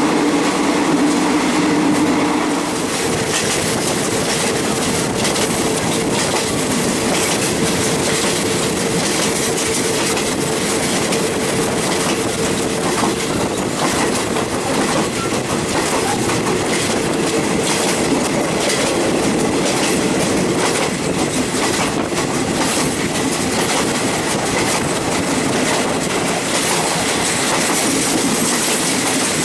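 Passenger train carriage running along the line: a steady rumbling rush of wheels and air, with the wheels clicking over the rail joints, heard at an open carriage window.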